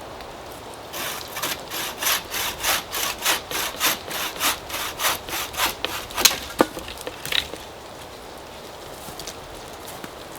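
Homemade bow saw cutting through a wooden pole in quick, even back-and-forth strokes, about three or four a second. It stops about six seconds in with a sharp knock, followed by a few light clicks.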